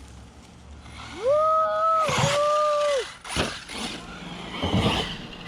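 Arrma Mojave 6S RC truck's brushless electric motor whining up as the truck accelerates, holding a steady pitch for about two seconds with a brief dip, then winding down. A sharp knock follows, and a short rush of noise comes near the end.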